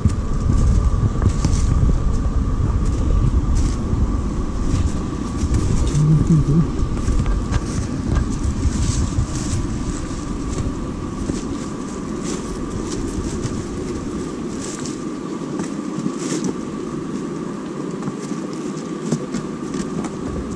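Footsteps crunching on dry leaves and twigs while walking downhill on a forest trail. Under them is a low rumble of wind on the microphone that dies down about halfway through.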